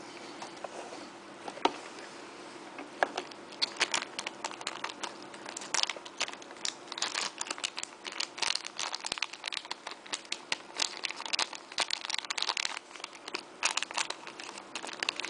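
Rubber washers being forced onto the rubber mounting pins of an 80 mm plastic PC case fan: a dense run of crackles and clicks from the rubber and plastic being handled, a few at first and coming thick and fast from about four seconds in.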